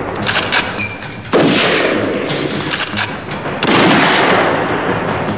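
Film gunfight sound effects: automatic rifle fire and heavy blasts, with loud surges about a second and a half in and again near four seconds.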